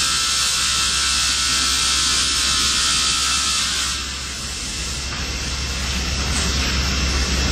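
Multi-blade panel rip saw cutting a wooden board: a loud, steady hiss of the blades through the panel that eases off about four seconds in as the cut finishes, leaving the saw running.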